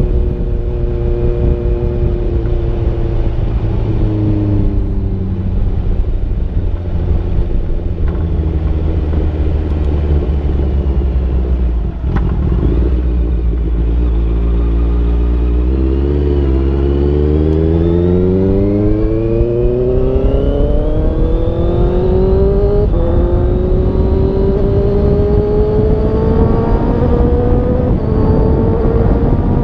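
Honda CBR650F's inline-four engine on the move, recorded on a GoPro with no wind cover, over heavy wind rumble on the microphone. The engine note climbs steadily as the bike accelerates from about halfway through, dipping briefly twice near the end as it shifts up.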